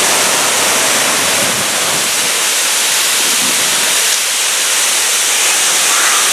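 Indian Falls, a waterfall pouring over a rock ledge into the pool below, making a steady rush of falling water.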